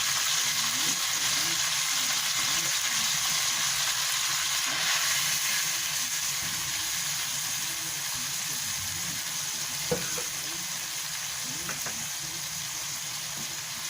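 Garlic sizzling steadily in olive oil in a frying pan, easing off slightly toward the end, with a single sharp knock about ten seconds in.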